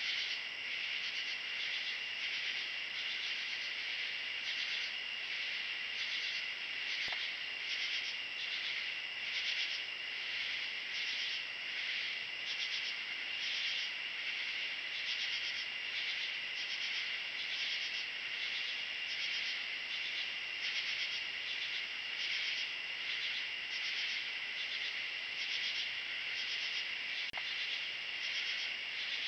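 Night-time insect chorus: a steady high trill, with a rhythmic pulsing call layered over it at about three pulses every two seconds.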